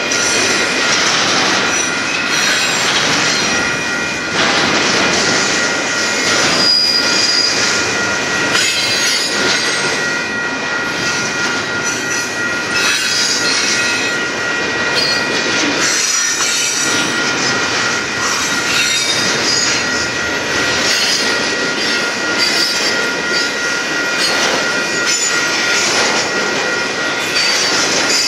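Freight train cars rolling past at close range: a steady, loud clatter and rumble of wheels on rail, with a continuous high wheel squeal.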